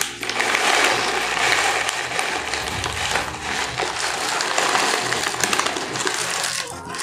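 Lay's potato chip bag crinkling and crackling as it is handled close to the microphone, a loud, dense rustle of foil-lined plastic.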